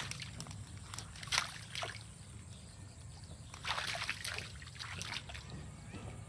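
Dog pawing and splashing in a shallow muddy puddle, in several separate short bursts, the sharpest about a second and a half in and a longer run of splashing about four seconds in.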